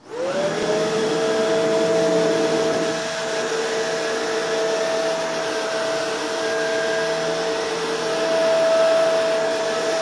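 Shark Rotator NV752 upright vacuum cleaner switched on, its motor whine rising as it spins up in the first half second, then running steadily on its low-pile carpet power setting as it is pushed over carpet.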